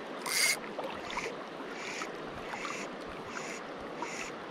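Steady rush of river water, with a short hissing swish repeating about every 0.7 seconds, about six times; the first, about half a second in, is the loudest.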